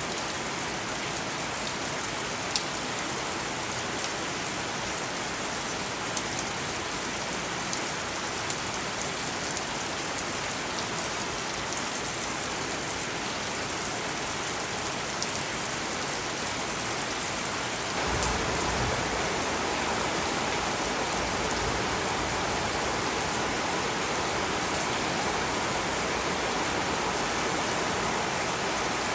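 Steady rain falling, with scattered individual drops ticking sharply on a surface. About two-thirds of the way through, the rain abruptly turns heavier and denser, fuller in the low end.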